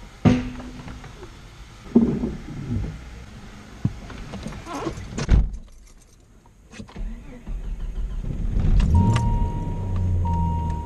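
Clicks and clunks at the ignition of a 1993 Jeep Grand Cherokee's 4.0-litre straight-six. The engine then catches about nine seconds in and settles into a steady idle, with a thin high tone running over it.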